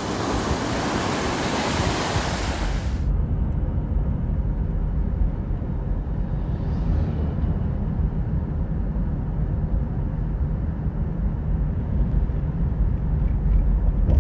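Ocean surf breaking and washing ashore with wind for about three seconds. It cuts off suddenly, and a steady low rumble follows.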